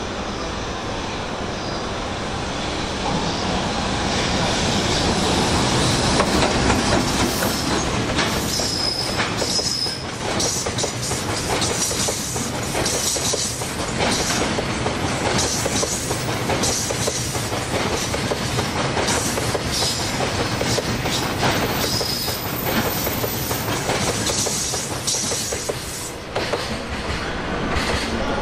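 Freight train of container flat wagons hauled by a JR Freight EF210 electric locomotive rolling through a station. Its wheels clack over the rail joints continuously, with a few brief high wheel squeals.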